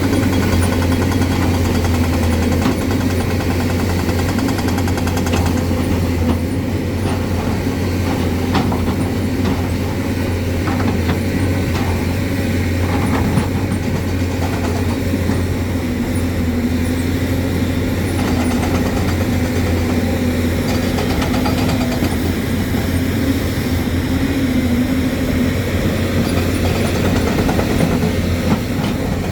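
Hyundai excavator's diesel engine running steadily, with scattered light knocks during the work.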